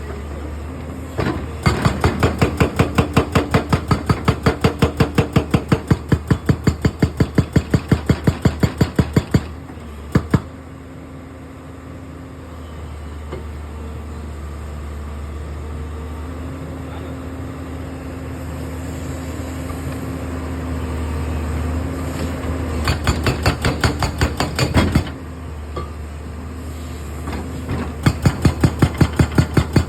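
Excavator-mounted hydraulic rock breaker hammering in three spells of rapid, evenly spaced blows, several a second. The excavator's diesel engine runs steadily underneath and between the spells.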